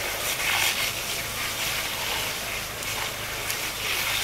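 A burning railway wagon gives a steady hissing roar with a few sharp crackles, over a low steady hum.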